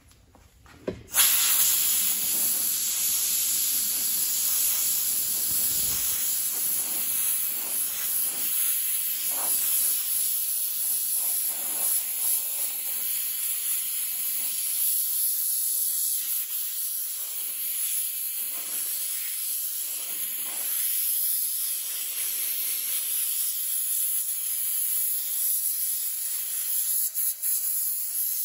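Compressed-air blow gun hissing steadily, starting about a second in, as it blows air onto a freshly lead-filled steel fender panel to cool it down.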